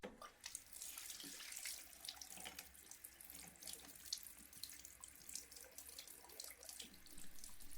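Water running from a tap into a sink, a steady faint splashing.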